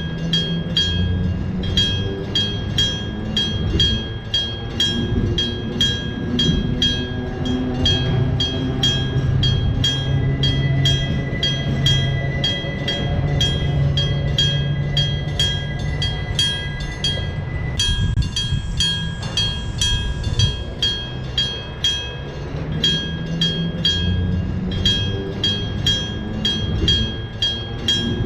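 Electric-bell level crossing ringing with fast, even strikes of its gong, while a train with nose-suspended traction motors passes, its motor whine rising in pitch. The bell sounds weaker for a few seconds past the middle under a hiss, then rings strongly again.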